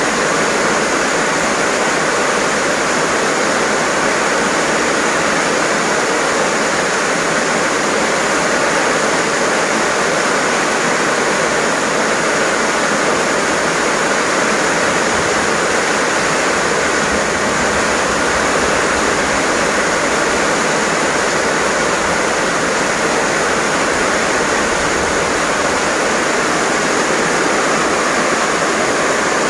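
Heavy rain pouring down steadily on garden plants, a dense even hiss.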